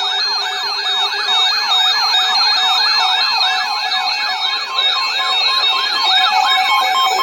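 Electronic siren in a fast yelp, its pitch sweeping up and down about three times a second with several sweeps overlapping, over steady held tones.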